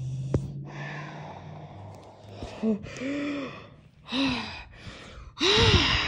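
A cartoon character hiccuping and gasping, heard through a tablet's speaker: a breathy stretch in the first second or two, then four short gulping vocal sounds, each rising and falling in pitch, the last one the loudest near the end.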